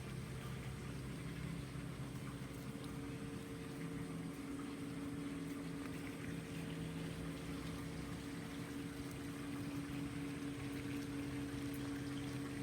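Steady hum of an outdoor electric motor over a constant rushing hiss, unchanging throughout.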